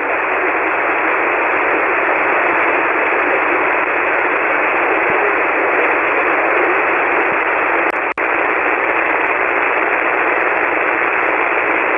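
Steady hiss of an amateur radio receiver's audio on an empty 7.188 MHz (40-metre) SSB channel, the static narrowed to the voice passband. It cuts out for an instant about eight seconds in.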